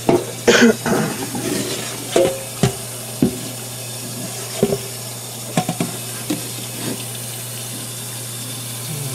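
Tap water running in a stainless steel sink while a circuit board is rinsed, with a few short knocks scattered through.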